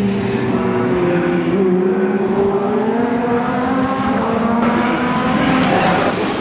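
Classic touring-car racing engines running hard as the cars pass on the circuit: the engine note dips, then climbs steadily as the car accelerates. About two-thirds of the way in it switches abruptly to another car's engine, which rises in pitch.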